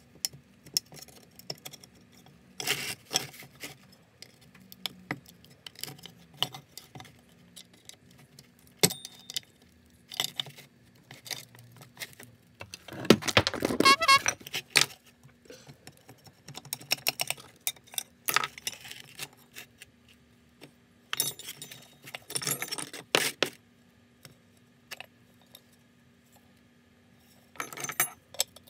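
Sped-up clinks, taps and scrapes of metal from handling and working on an old car horn and small tools on a wooden workbench, with one louder pitched burst about halfway through.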